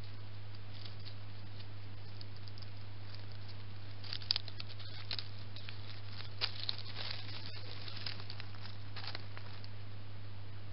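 Scattered light rustles and crackles in dry leaf litter from about four seconds in, over a steady low hum, typical of a hedgehog moving about out of view.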